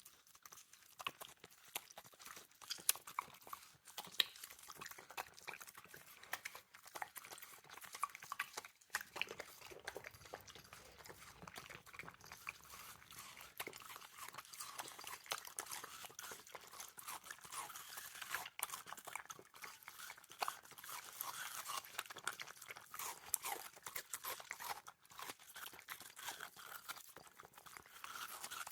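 Two small dogs crunching and chewing watermelon in close-up, a steady run of wet, irregular crunches and smacks with sharper bites here and there.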